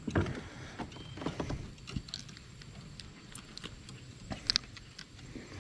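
Scattered small clicks and taps of fishing pliers working a hook out of a bass's mouth, with a sharp double click about four and a half seconds in.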